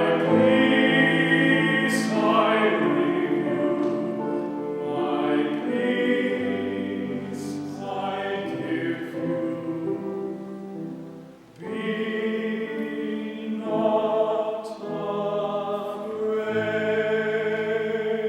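Choral music: voices singing held notes over sustained accompaniment, with a brief dip about eleven seconds in before the music resumes.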